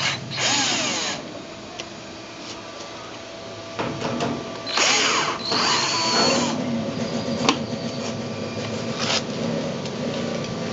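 Power drill/driver running in two short bursts, its pitch gliding as it speeds up and slows, backing out the two quarter-inch screws that hold the washing machine's top cover. A few sharp clicks come between the runs.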